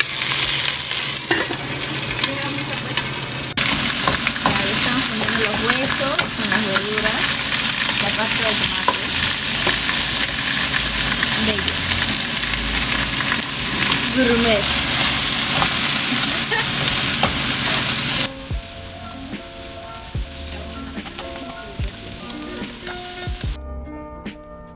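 Chicken pieces and chopped vegetables sizzling in a stock pot while they are stirred with metal tongs, a loud steady sizzle. Near the end the sizzling stops and background music with held notes takes over.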